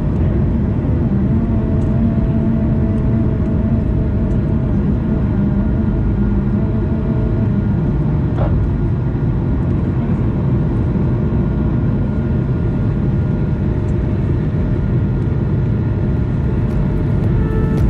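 Inside the cabin of an Airbus A220-300 during takeoff and initial climb: steady, loud noise from its Pratt & Whitney PW1500G geared turbofans at takeoff thrust, heard from a window seat beside the wing. A single brief knock sounds about eight seconds in.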